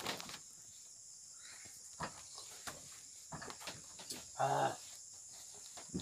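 Steady high-pitched drone of forest insects, with a few light knocks and a short voice about four and a half seconds in.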